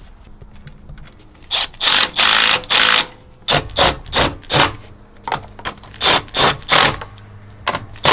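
Cordless electric ratchet running in bursts as it drives bolts in: a couple of longer runs about two seconds in, then a string of about ten short trigger pulses.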